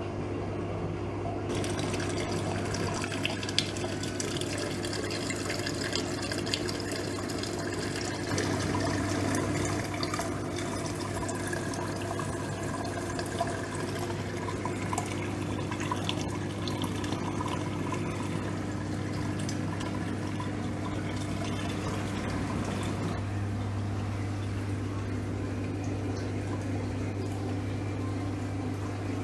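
Running water in a reef aquarium system, splashing and trickling over a steady low pump hum; the splashing picks up a second or two in.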